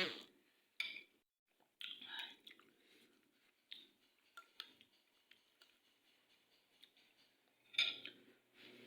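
Someone eating Indomie instant noodles: quiet chewing and mouth sounds with scattered light clicks of utensils. There is one louder burst near the end.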